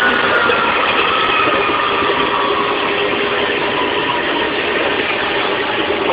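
CNC milling-engraving machine running, its spindle giving a high whine that slowly falls in pitch over a steady machine noise. The sound cuts off abruptly at the end.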